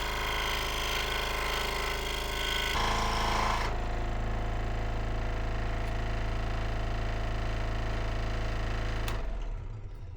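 Electric power tool running steadily on wood, with a slight change in its sound about three seconds in, then switched off about nine seconds in.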